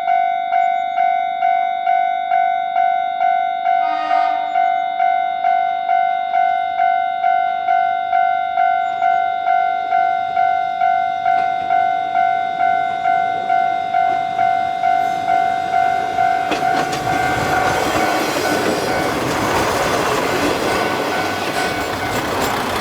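Railroad-crossing warning bell ringing steadily, about two strikes a second. A brief horn note sounds about four seconds in. From about sixteen seconds a diesel railcar approaches and passes over the crossing, its engine and wheel noise growing loud under the bell.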